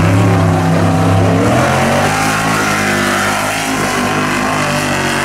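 Mega truck's engine running hard at high revs as it drives through the mud, its pitch holding fairly steady and easing a little about two seconds in.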